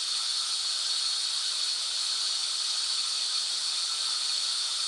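Steady white noise: an even, unbroken hiss weighted toward the high end.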